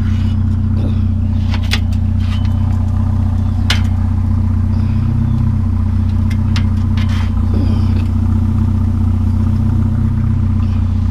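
Truck engine idling steadily, with scattered sharp clanks and knocks from scrap metal being handled and loaded.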